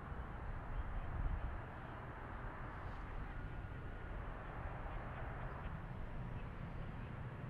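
Distant four-engine turboprop transport plane landing and rolling out on the runway: a steady, noisy engine drone with a low rumble, a little louder about a second in.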